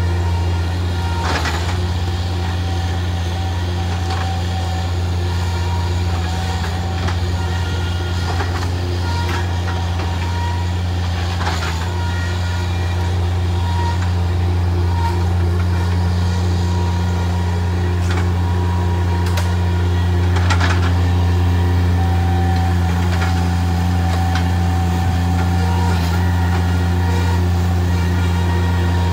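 Engine of a Bobcat MT100 mini track loader running at a steady speed, with a few sharp knocks along the way.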